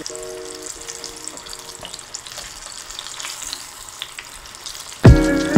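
Battered onion rings deep-frying in hot oil in a small pot, a steady sizzle with small crackles. Music comes in loudly near the end.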